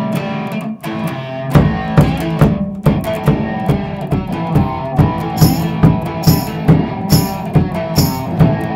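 An electric cigar box guitar played through an amplifier with a drum kit. A steady kick-drum beat comes in about a second and a half in, and cymbal hits join about halfway through.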